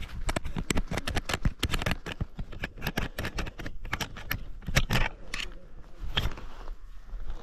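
Rapid, irregular clicks, taps and scrapes close to the microphone: handling or clothing noise against a body-worn camera.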